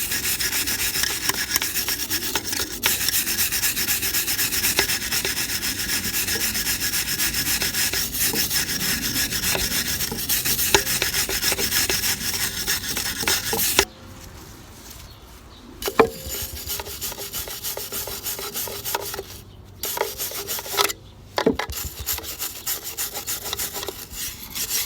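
Rapid back-and-forth hand scrubbing of rust off a scooter's metal exhaust pipe with an abrasive, going steadily, then stopping briefly about 14 seconds in and carrying on in shorter spells.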